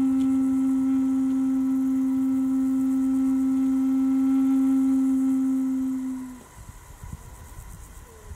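Wooden end-blown flute holding one long, steady low note, which stops about six seconds in, leaving a pause with only a faint low rumble.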